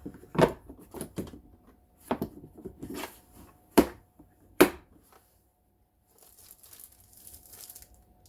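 Hands handling the kit's contents: about five sharp, separate knocks and clacks, the loudest two close together near the middle. A soft crinkling of packaging follows near the end.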